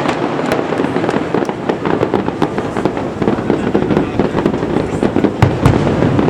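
A fireworks display, with many shells bursting in quick succession into a dense crackle of pops. A couple of heavier booms come about five and a half seconds in.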